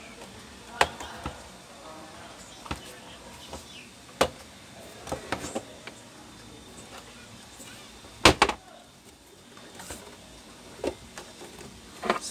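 Scattered clicks and knocks from a Dowell IC-20SS induction cooker's casing being handled, turned over and set down on a workbench, the loudest knock about eight seconds in.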